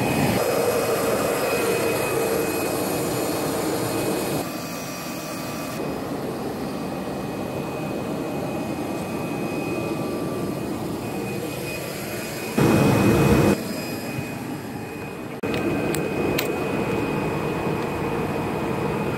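Steady jet engine noise with a thin high whine over it. The level shifts abruptly several times, and there is a louder stretch of about a second roughly twelve and a half seconds in.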